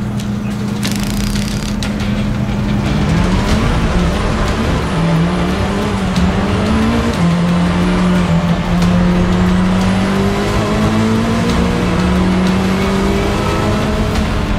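Race car engine under hard acceleration. Its pitch climbs, falls back at a gear change about 7 seconds in, then climbs again more slowly.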